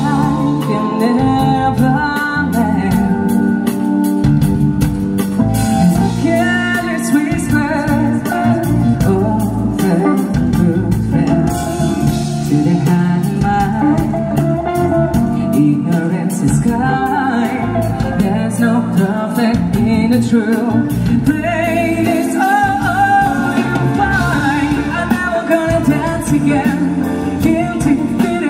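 Live band music: a singer over guitar, keyboard and a drum kit keeping a steady beat.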